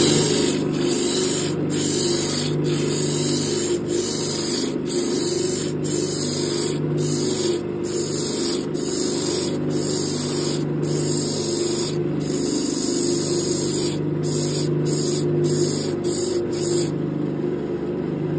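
Sandpaper strip held against a grip blank spinning on a wood lathe, a loud steady sanding hiss that breaks off briefly about once a second, over the lathe motor's steady hum. The sanding stops about a second before the end while the motor keeps running.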